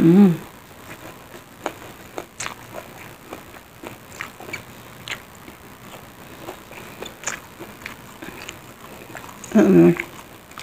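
Close-miked chewing and mouth sounds of a person eating rice and stir-fried water spinach by hand: soft, scattered wet smacks and clicks. A brief hummed vocal sound comes at the start and again near the end.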